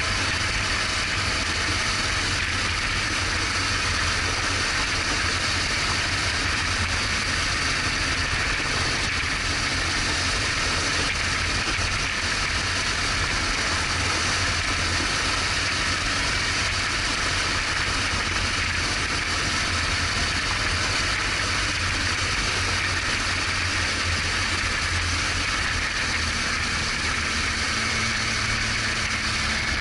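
BMW R1200GS Adventure's flat-twin engine running at a steady pace, its low rumble under a steady rushing noise.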